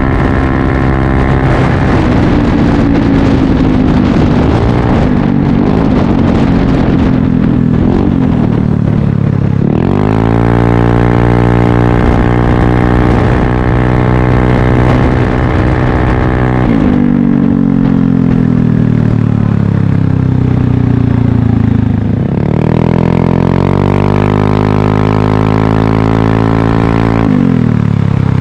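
Yamaha Aerox 155 Connected's single-cylinder four-stroke engine running through an aftermarket Corse Italian Performance carbon slip-on exhaust. The note sinks slowly at first, then climbs sharply about ten seconds in and holds high for several seconds. It drops, climbs and holds again, and falls near the end.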